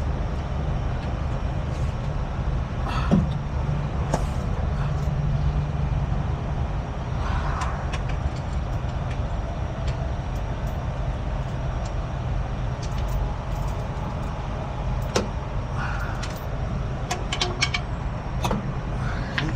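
Heavy truck engine idling steadily, with scattered metal clicks and clanks from hand tools and parts as the driveshaft hardware is taken off a semi.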